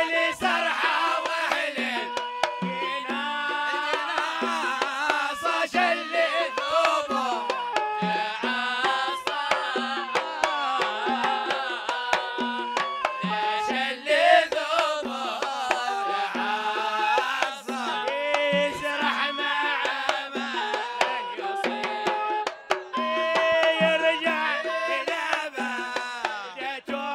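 A devotional poem sung in the Hadhrami zarbadi style over hand drums beating a steady rhythm, the melody ornamented with bending, gliding notes.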